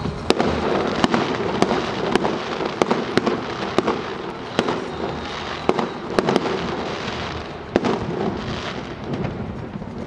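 Fireworks display: a dozen or so sharp, irregularly spaced bangs from exploding shells over a continuous dense crackle of glittering star effects.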